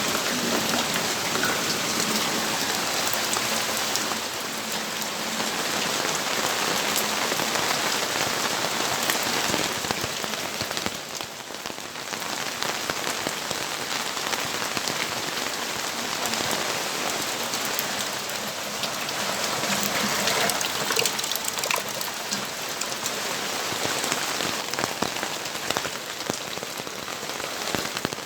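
Steady rainfall heard close from a balcony, a dense hiss full of many small drop impacts ticking on nearby surfaces, easing briefly about eleven seconds in before picking up again.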